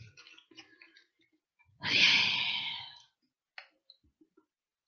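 A person's long, breathy exhale, a heavy sigh lasting about a second, in reaction to the strong smell of sour candy straws. Faint rustling and small clicks come before it.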